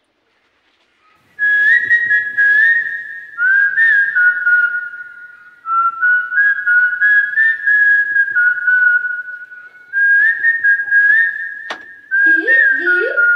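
A person whistling a simple tune with the lips: long held notes stepping up and down in three phrases, with a short break between them. It is the summoning whistle that calls a genie out of a bottle. A brief sharp click comes near the end.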